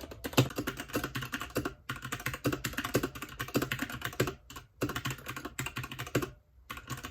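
Fast typing on a computer keyboard, a dense stream of key clicks in runs, with brief pauses about two, four and a half, and six seconds in.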